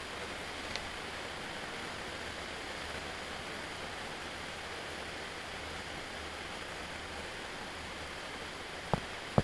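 Steady, even hiss of room noise, with a faint tick about a second in and a sharp knock near the end.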